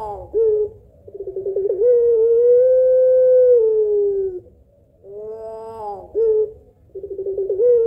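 Puter pelung dove (long-voiced Barbary dove) cooing, two phrases. Each opens with a rising-and-falling note and a short note, runs into a quick stutter of notes, then stretches into one long drawn-out coo of about two and a half seconds that drops in pitch at the end.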